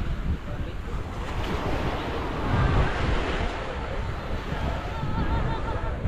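Small ocean waves washing onto the sand with wind buffeting the microphone, and faint voices in the background.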